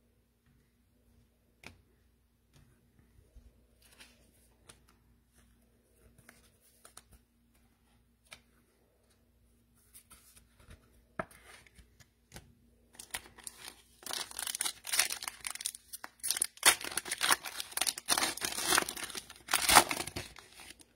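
Foil wrapper of a Donruss football card pack being torn open and crinkled by hand: a few faint handling clicks at first, then from about two-thirds of the way in, several seconds of loud crackling and tearing.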